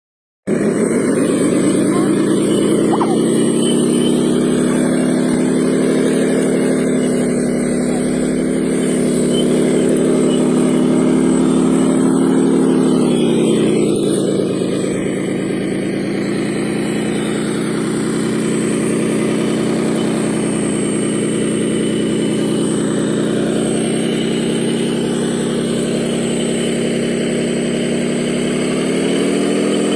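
Radio-controlled construction model running, giving a steady engine-like drone. The pitch drops about halfway through and climbs again near the end, as the machine is throttled down and up.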